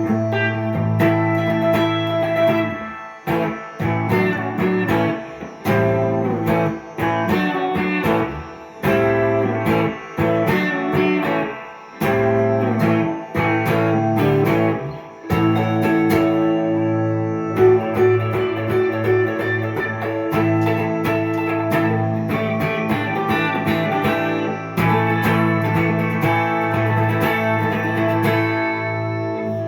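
Gibson ES-339 semi-hollow electric guitar improvising in a jazzy tone with Indian, oriental-flavoured melodic turns. Melodic phrases move over a held low note, with short pauses between phrases.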